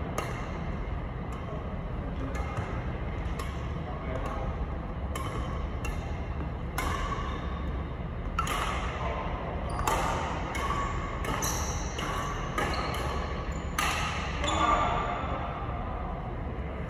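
Badminton rackets striking a shuttlecock during a rally: sharp pings about once a second, echoing in a large gym hall, over a steady low hum.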